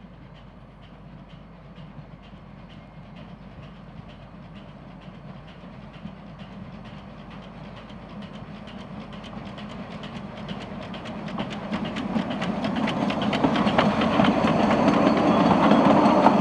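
Two-foot-gauge steam locomotive hauling a train of coaches, working towards the listener with an even chuffing beat that grows steadily louder. Over the last few seconds the coaches pass close by, rattling and clicking over the rail joints.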